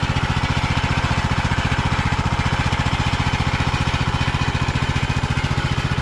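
Kohler Courage engine on a Craftsman riding mower running steadily, with an even, rapid exhaust pulse.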